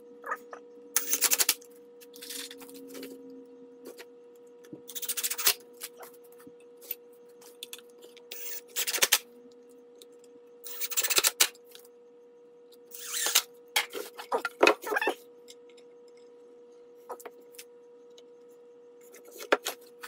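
Cordless drill-driver running in short bursts, about eight times, into the pine boards while the side pieces of a small wooden tray are drilled and screwed together. A faint steady hum lies underneath.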